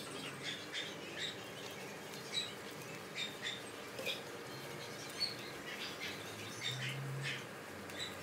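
Small birds chirping in short, high chirps, two or three a second, off and on.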